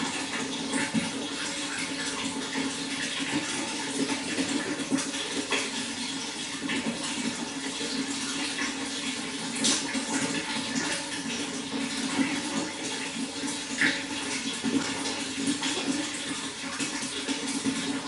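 Water flowing steadily, with many small splashes throughout.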